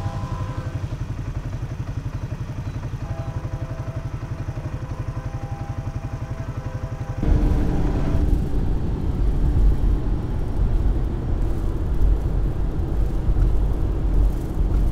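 Ag-Cat crop-duster biplane's radial piston engine running steadily with an even, rapid throb. About seven seconds in the sound cuts abruptly to a louder, low, even rumble of road and wind noise from inside a moving car.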